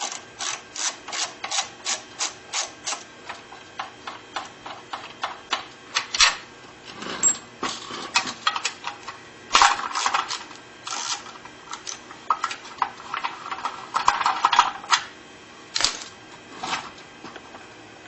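Socket ratchet clicking in quick, even runs, about five clicks a second at first, as the bolts holding a lawnmower engine's carburetor and fuel-tank assembly are wound out. A few louder, longer metal rasps come later.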